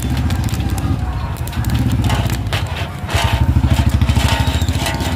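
Large iron-drum popcorn machine running with a steady low, fast-pulsing mechanical drone that gets louder about three seconds in. Over the drone, popcorn crackles and scrapes as the paddle stirs it inside the drum.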